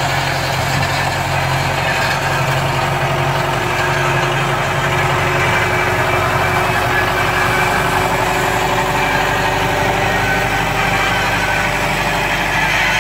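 Belarus tractor's diesel engine running steadily as it pulls a disc harrow across tilled ground.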